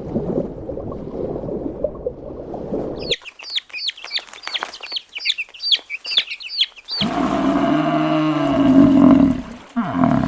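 Animal calls in three quick edited clips. First a dense, noisy stretch of low calls, then about four seconds of rapid high chirps that each fall in pitch, then a long low call that rises and falls.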